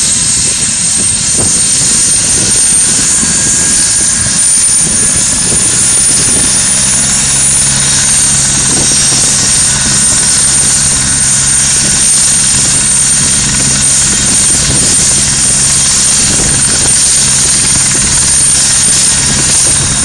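Turbine helicopter running on the ground with its rotor turning: a steady high-pitched turbine whine over rotor and engine noise. The whine rises slightly and eases back about eight seconds in, and a low steady hum joins about six seconds in.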